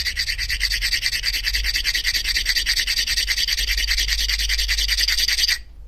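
A piece of opal rubbed rapidly back and forth by hand on a fine-grit knife-sharpening stone, a gritty rhythmic scraping as the stone grinds the opal down toward a cabochon. It stops abruptly near the end.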